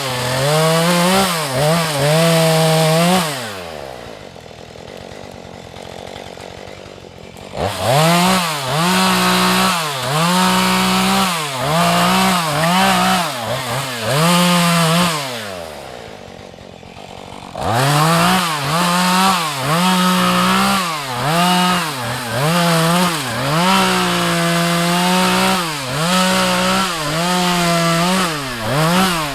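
Husqvarna 435 two-stroke chainsaw revved in quick throttle bursts, about one a second, while cutting. It drops back to idle twice for a few seconds.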